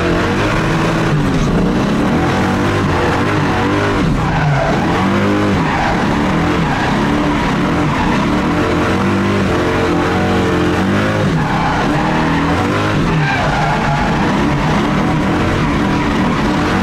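Drift car engine revving up and down over and over as it slides through corners, with tyres screeching, heard from inside the cabin.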